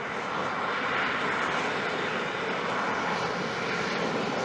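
F-35B Lightning II hovering in vertical-landing mode: a steady jet roar from its Pratt & Whitney F135 engine and shaft-driven lift fan.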